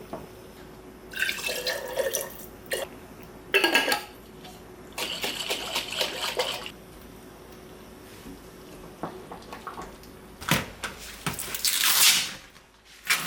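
Water from a kitchen tap running and splashing in four or five short bursts of a second or two each, the last and loudest near the end.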